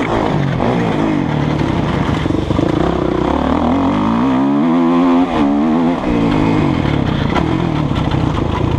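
2008 Kawasaki KX450F single-cylinder four-stroke motocross engine revving under load while ridden, heard from on the bike. The pitch rises and falls with the throttle, climbs steadily for a couple of seconds, dips sharply about five seconds in as the throttle closes, then runs on steadily.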